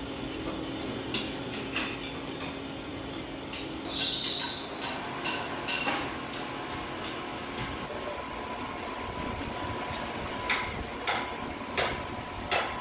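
Bolts on an engine block being worked with a long-handled socket wrench: two runs of sharp metallic clicks, one about four seconds in and one near the end, each click roughly half a second apart, over a steady machine-shop hum.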